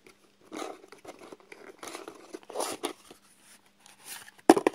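Small cardboard packaging rustling and scraping in irregular spells as a nail polish bottle is worked out of its box, with one sharp knock near the end.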